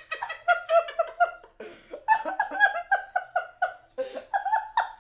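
A woman and a teenage boy laughing hard, in rapid high-pitched 'ha-ha' pulses about five a second, broken twice by sharp breaths.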